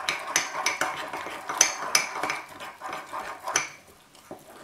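Metal spoon stirring thick Nutella mug-cake batter in a ceramic mug, clinking against the mug's sides about three times a second, then quieter strokes near the end.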